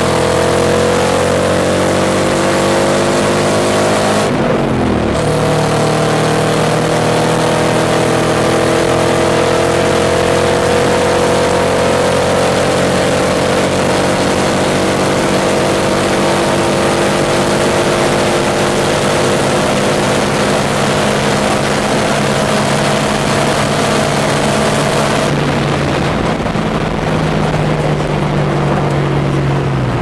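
Twin-turbo LS1 V8 of a Pontiac Trans Am at full throttle, heard from inside the cabin. The engine note climbs, drops sharply at a gear change about four and a half seconds in, then rises slowly through a long high-speed pull. Near the end the hiss fades and the engine note sinks slowly.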